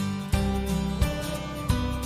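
Background music with guitar and a steady beat, about three beats in two seconds.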